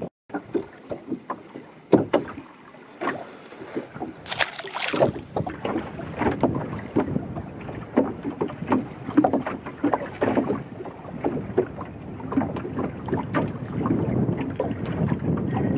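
Wind buffeting an unshielded microphone, with small waves knocking and slapping irregularly against the hull of a small open boat; a louder gust or splash about four seconds in.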